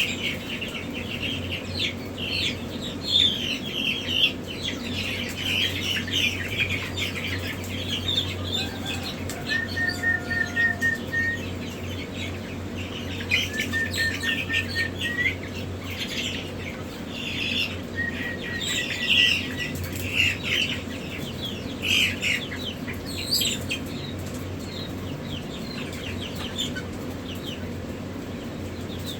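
A group of young chickens peeping and chirping constantly, with brief fluttering of wings. Three short, rapid, even trills stand out about a third and half way through, over a steady low hum.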